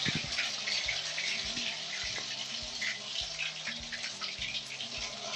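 Ginger-garlic-onion paste sizzling in hot canola oil in a kadai, a steady hiss with fine spitting.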